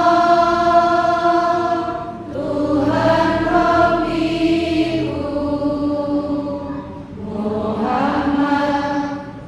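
Chanted Islamic prayer recitation in three long, drawn-out phrases, the last one sliding upward in pitch.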